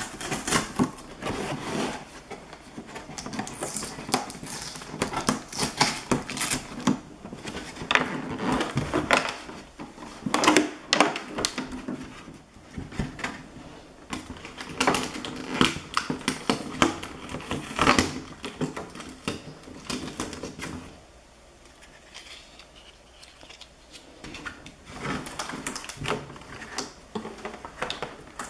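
Clear plastic blister packaging being handled and pulled at by hand: irregular crackling and clicking, with a short lull about three-quarters of the way through.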